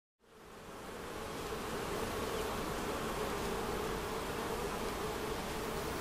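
Many honeybees buzzing around their hives. The steady drone fades in over the first second or two, then holds level.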